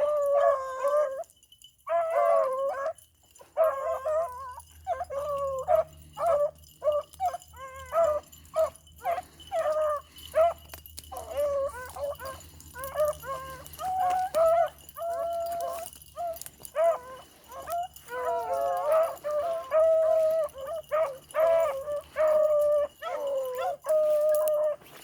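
Beagles baying on a rabbit's trail, a dense run of overlapping bawls and chop barks from several hounds.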